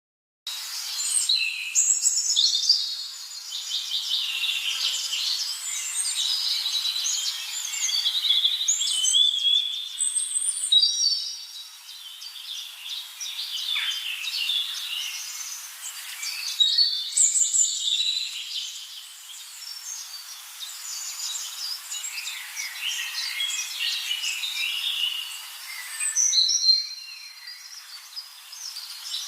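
Many small songbirds chirping and singing in a dense, high-pitched chorus, with no low sounds under it. The chorus breaks off and picks up again abruptly three times.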